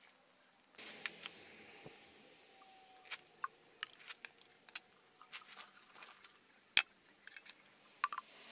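Small metal clicks and clinks, scattered and irregular, from forge tongs gripping a small steel ladle as it is carried and handled, starting about a second in; one sharp clink near the end stands out above the rest.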